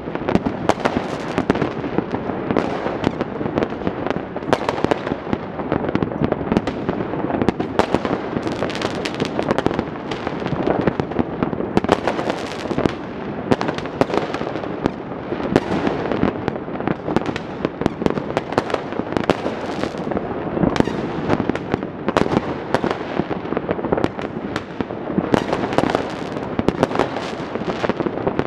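Many fireworks and firecrackers going off all over a city at once: an unbroken crackle of overlapping bangs and pops with no pause.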